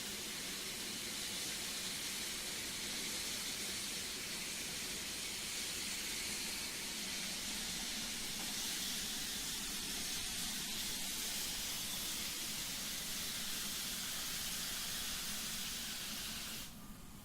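Steam locomotive blowing off steam: a steady, high hiss that stops abruptly near the end.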